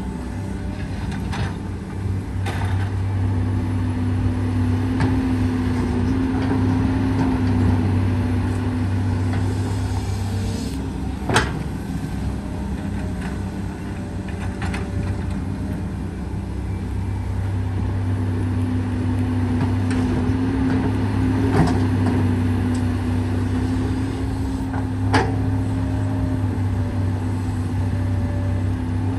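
Diesel engine of a Komatsu PC200 hydraulic excavator running steadily, its note rising and holding for several seconds at a time as the machine works, with a handful of sharp knocks, the loudest near the middle.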